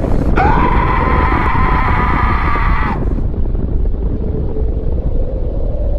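Deep, continuous rumble of a large explosion. About half a second in, a steady high wail sits on top of it for some two and a half seconds, then cuts off abruptly.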